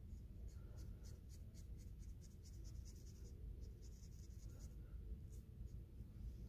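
Faint scratching of a fine paintbrush dabbing and stroking paint onto paper: a quick, irregular run of soft strokes that stops about a second before the end.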